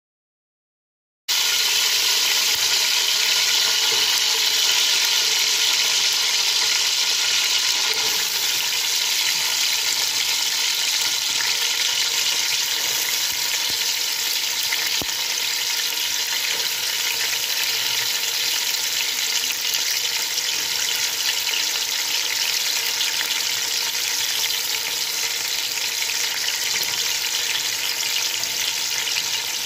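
Chopped onion, green pepper, carrot and corn sizzling in hot oil in a large aluminium pot, a steady dense hiss that cuts in suddenly about a second in.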